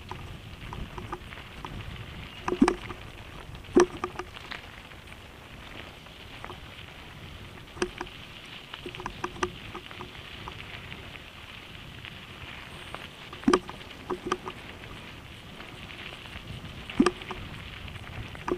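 Mountain bike rolling fast down a gravel road: a steady crunch and hiss of tyres on loose gravel, broken by a few sharp rattling knocks from the bike as it jolts over bumps.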